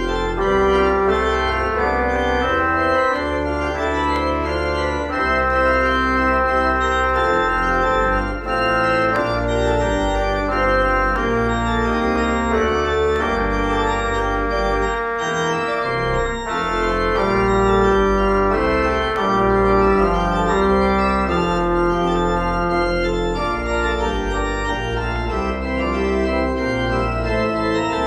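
Organ postlude: full sustained chords over a low pedal bass, the chords changing every second or two.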